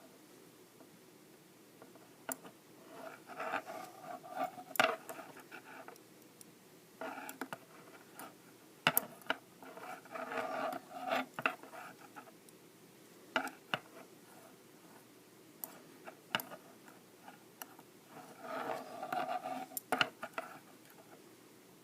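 Knitting needles clicking and scraping against each other at irregular intervals while stitches are bound off, with a few stretches of scraping.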